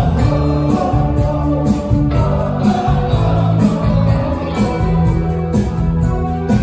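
Live rock band playing, with electric guitars, keyboards and drums under a male lead vocal, heard from the audience in a concert hall.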